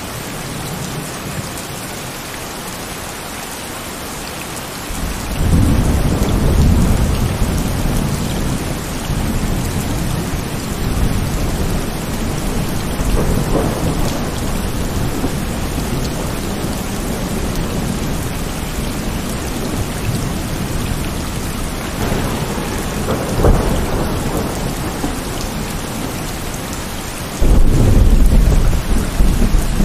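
Heavy rain falling steadily in a thunderstorm, with thunder rolling in several times: a long deep rumble about five seconds in, a softer one around the middle, a sharp clap a little past two-thirds of the way, and a loud rumble that starts suddenly near the end.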